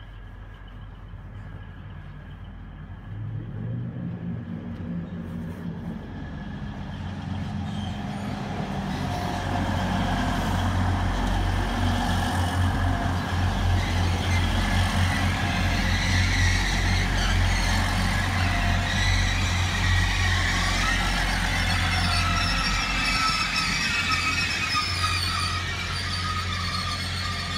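Grand Central Class 180 diesel multiple unit coming into the station: a low diesel engine hum and wheel noise grow louder over the first ten seconds as it draws alongside the platform. Wavering high squealing tones from its brakes rise over the rumble as it slows.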